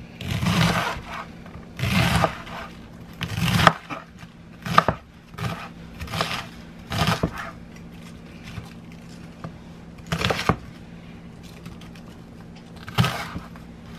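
Kitchen knife cutting and scraping through raw cabbage on a cutting board: a run of irregular crunching cuts, several in quick succession at first, then fewer and further apart.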